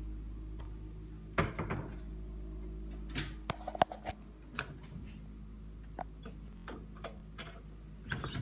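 Footsteps and light knocks and clicks of someone moving across a room with a wooden floor, scattered and irregular, the sharpest knock about four seconds in, over a steady low hum.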